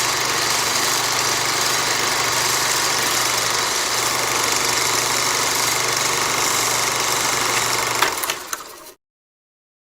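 Projector running with a steady mechanical whir over a constant low hum. About eight seconds in there is a click, and the sound winds down and stops a second later.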